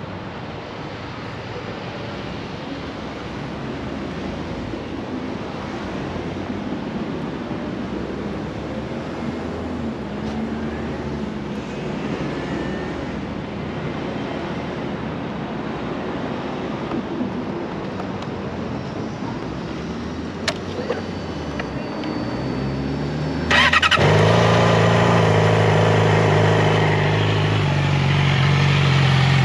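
Outdoor street-traffic ambience, with a single click about twenty seconds in; then, about twenty-four seconds in, a 2016 Yamaha R6's inline-four engine starts abruptly and settles into a steady idle through its Arrow titanium slip-on exhaust.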